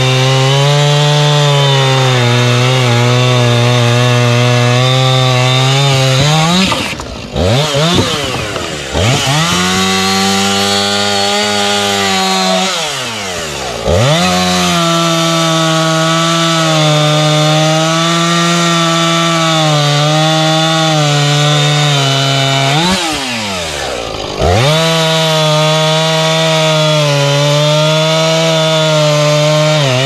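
Gasoline chainsaw under throttle, cutting through a rack of sawmill slabs. Engine speed falls and revs back up between cuts a few times: about a quarter of the way in, near the middle, and about three quarters through.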